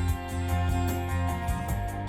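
Instrumental music with guitar, heavy bass and a steady beat, played through the BMW 840i Gran Coupe's 16-speaker Harman Kardon surround sound system and heard from inside the cabin.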